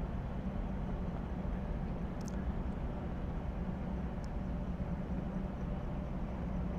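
Steady low mechanical hum of a large cruise ship's engines and machinery, with two faint ticks about two and four seconds in.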